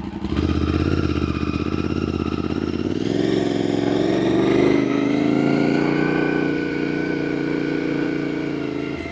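Aprilia Tuareg 660's parallel-twin engine running through an aftermarket Akrapovic full exhaust system while riding. The engine note climbs under throttle about three seconds in, holds steady, then eases off near the end.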